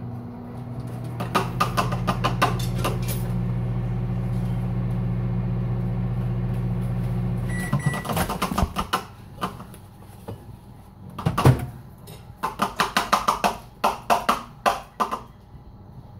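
A microwave oven runs with a steady hum, then shuts off with a beep at about eight seconds in. After it, a metal teaspoon clinks quickly and repeatedly against a small cup while stirring.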